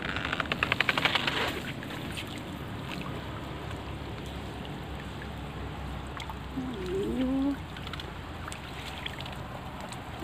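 Water splashing and trickling, with a rapid flurry of small splashes in the first second and a half. About seven seconds in, a short wavering, voice-like call.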